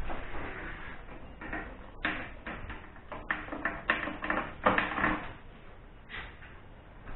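A quick series of clicks, knocks and rattles from old metal railway equipment being handled and its knob turned by hand, busiest in the middle few seconds.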